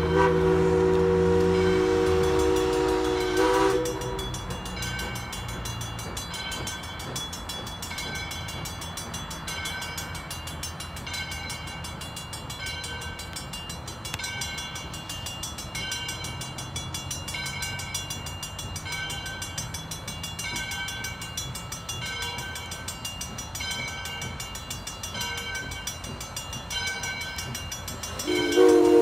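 Steam locomotive No. 40, a 2-8-2 Mikado, blowing its whistle as a steady chord of several tones for the first three and a half seconds. Then a bell rings steadily, about once a second, and near the end the whistle sounds again.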